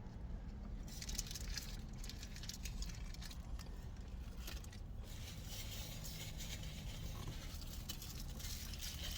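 Faint eating sounds: quick crackly clicks and crinkles of chewing and handling food, over a low steady hum.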